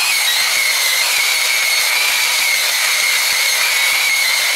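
Makita 9741 wheel sander running steadily, its abrasive wheel grinding the weathered surface of an old Douglas fir log. The sound is a high motor whine over a steady hiss.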